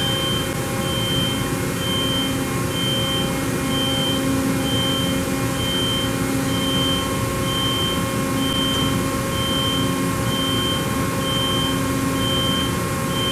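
Steady running hum of a large CNC vertical boring mill, holding several steady tones, with a short high beep repeating about once a second.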